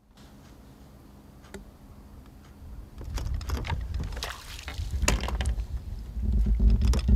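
A hooked crappie splashing at the surface as it is reeled in and lifted from the water, with sharp knocks and a low rumble that grows louder toward the end.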